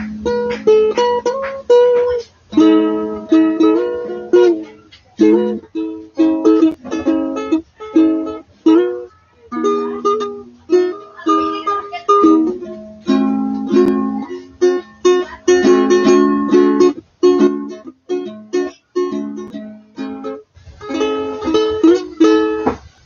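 Ukulele played solo, strummed chords in a steady rhythm, stopping near the end.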